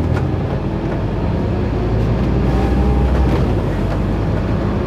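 Scania OmniCity single-deck bus on the move, heard from inside the passenger saloon: a steady low diesel engine drone with road noise.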